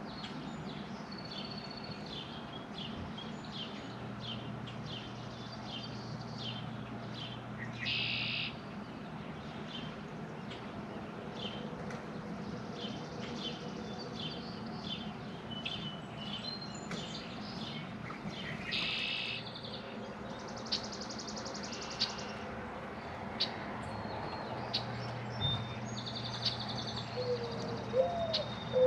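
Small birds chirping and singing again and again over a faint low hum. Near the end a low, gliding dove's coo begins.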